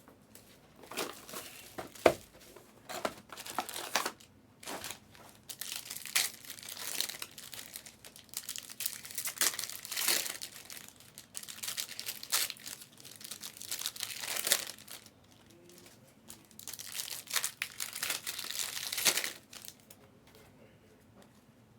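Trading-card box and pack wrappers crinkling and tearing as they are opened, in irregular rustling bursts, with a sharp snap about two seconds in. The handling stops a couple of seconds before the end.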